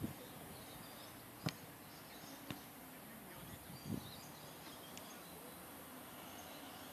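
Quiet outdoor ambience with a few short, sharp knocks of a football being kicked across the pitch, the clearest about a second and a half in, and a duller thud a little before the end. Faint high chirping runs underneath.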